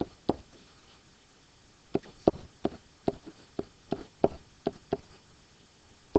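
A stylus tapping and knocking on the writing surface as letters are written by hand: two sharp taps at the start, a short pause, then a steady run of clicks about two or three a second.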